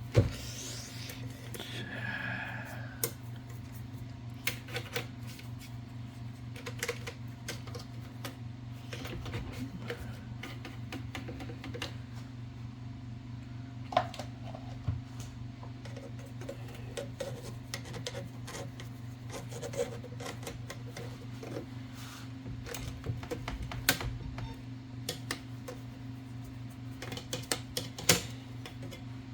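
Scattered small metallic clicks and taps from an Olivetti typewriter carriage being handled as it is oiled, over a steady low hum.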